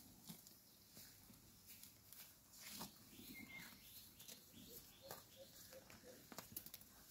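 Faint, irregular crisp tearing and crunching of a water buffalo cropping and chewing grass and low leafy plants.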